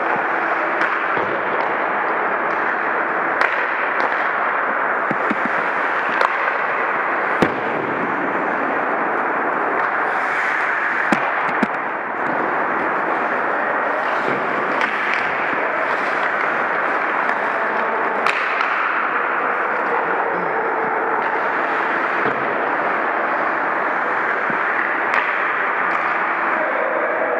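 Ice hockey play heard in a rink: a steady noisy wash of arena sound, cut every few seconds by sharp cracks of sticks and puck, the loudest about seven seconds in.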